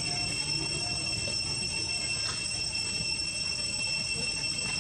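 Steady high-pitched insect drone of several held tones over a low, even background noise.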